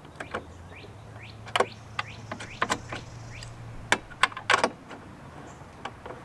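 Scattered clicks and knocks of metal mounting hardware and hard plastic as a heavy tow mirror is held against a truck door and its top mounting nut is threaded on from inside the door, with a few sharper knocks in the middle.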